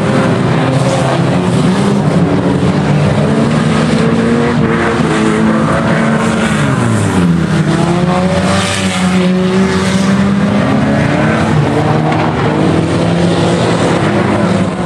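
Engines of several old saloon race cars running together around the track, revving up and down. One engine's pitch drops and climbs again about halfway through.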